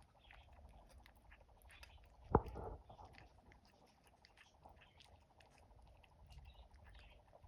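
A pet animal chewing food, its jaw making many small, irregular clicks and crunches, with one much louder knock about two and a half seconds in.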